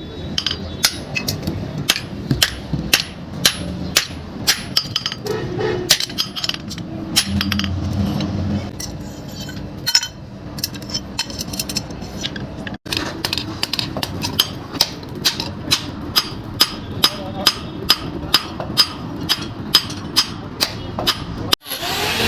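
Hammer blows on metal during the forging repair of an axe, struck in a steady rhythm of about two blows a second, with a short pause about nine seconds in.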